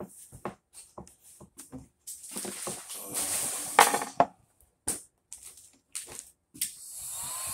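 Vinyl wrap film crinkling and rustling for a couple of seconds as it is handled on the trim piece, among light taps and scrapes. Near the end a heat gun switches on and blows steadily with a faint whine.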